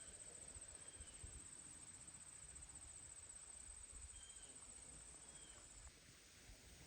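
Faint, steady high-pitched trill of insects in a rural summer field, cutting off near the end, with a few faint short chirps over it.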